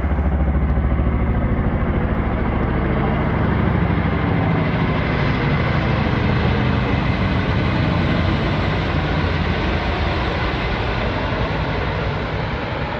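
A motor engine running close by with a low, rapid pulse under a broad rush of noise; the pulse is strongest in the first few seconds and eases off a little after that.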